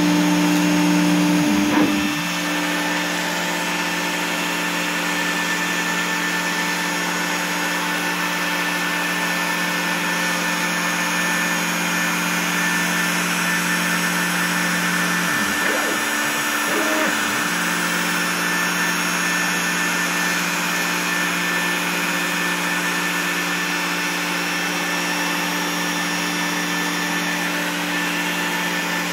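Bosch Colt trim router spinning a 1/32-inch single-flute bit on a CNC gantry, cutting foam board, together with a shop vacuum running steadily. The steady hum briefly sags in pitch and recovers twice, about two seconds in and about halfway through.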